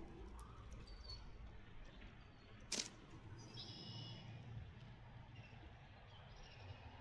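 Quiet outdoor ambience with a steady low rumble, faint short bird chirps, and a single sharp click a little under three seconds in.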